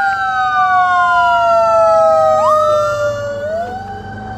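Two emergency vehicle sirens wailing at once at different pitches, each sliding slowly down and then rising quickly, one about halfway through and the other near the end. A low vehicle rumble grows near the end.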